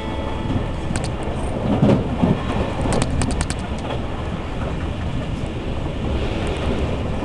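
Inside a moving E351 series express electric train: the steady rumble of the car running along the line, with a quick series of sharp clicks and a low thump from the wheels over rail joints or points in the first half.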